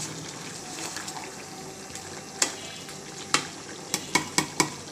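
Chicken and potato curry sizzling in a metal karahi as it is stirred and fried down in its spices. The spatula knocks against the pan about six times in the second half, the knocks coming closer together near the end.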